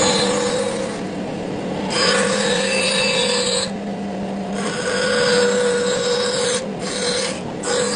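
A woodworking power tool running with a steady hum, with wood pressed against it in five passes of a second or two each, each pass giving a harsh rasping hiss.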